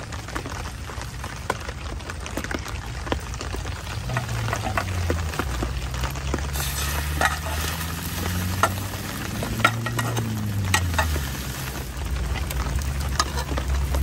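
Toast sandwich frying and sizzling in a grill pan on a gas-cartridge camping stove. A knife scrapes and taps against the pan, making sharp ticks, and the sizzle grows brighter about halfway through.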